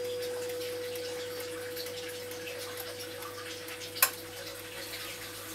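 Hermle wall clock's chime rod ringing on in one steady note and slowly dying away, with the clock ticking faintly. A sharp click about four seconds in as the minute hand is pushed round to the next chime point.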